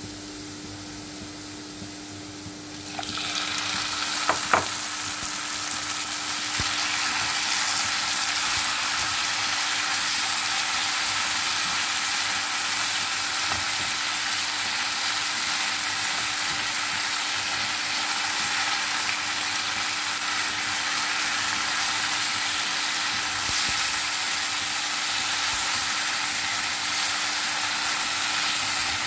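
Oil bubbling quietly in a frying pan, then about three seconds in raw shrimp go into the hot oil and a loud, steady sizzle takes over. A couple of sharp knocks come just after, and the shrimp are stirred and turned with a spatula while they fry.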